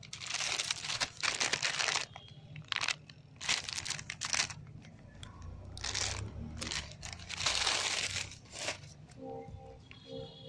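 Paper and plastic firecracker packaging crinkling and rustling as the packs are handled, in several irregular bursts.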